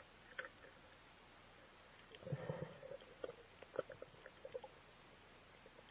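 Muffled underwater clicks and knocks through an action camera's waterproof housing as a speargun is handled, with a louder cluster of thumps about two seconds in and a few sharp clicks after.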